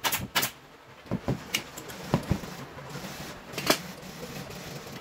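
Pneumatic staple gun firing two sharp shots just after the start, the end of a quick run of staples into the sofa base. Then knocks and thumps as the wooden frame is handled, with one sharp loud knock a little before the end.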